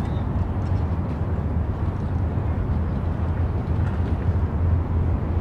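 Outdoor riverside city ambience: a steady low rumble under a constant wash of noise, with no distinct events standing out.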